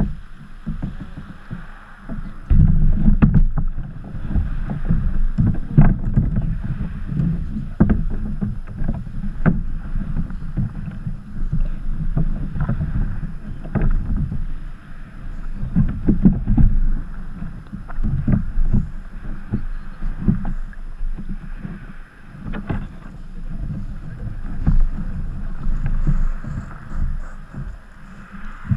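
Water sloshing and slapping against a sea kayak's hull, picked up by a camera on its front deck, with wind buffeting the microphone in an uneven low rumble and many short knocks.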